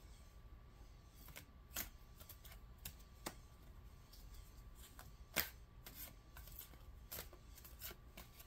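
Tarot cards being shuffled and handled: irregular soft clicks and flicks of the cards, the sharpest about five and a half seconds in.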